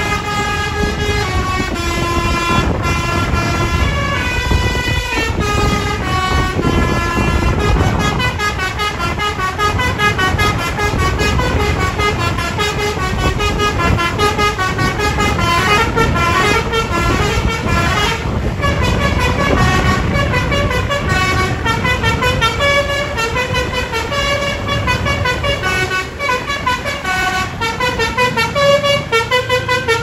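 Indonesian bus 'telolet basuri' multi-tone horns playing continuous quick runs of musical notes, with a low engine rumble underneath.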